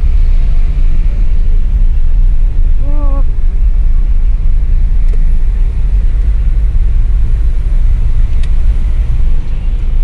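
Car driving in city traffic, heard from inside the cabin: a steady, loud low rumble of engine and road. A brief wavering tone comes about three seconds in.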